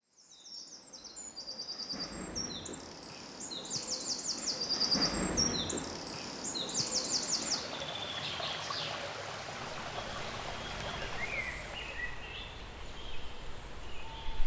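Woodland ambience fading in from silence: birds singing repeated high, rapid trills over a steady rush of a stream over rocks. The trills are strongest in the first half, and quieter calls follow.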